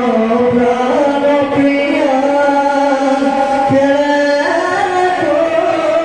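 Bhaona devotional singing: a voice holding long drawn-out notes that step up and down in pitch, with occasional soft drum strokes underneath.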